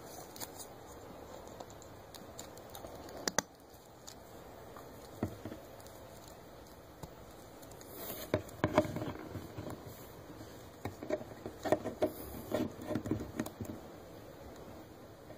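Small clicks and knocks from a plastic action figure being handled, its limbs bent and its feet set on a wooden table. There are a few separate clicks, then a busy run of taps and knocks from about eight to thirteen seconds in.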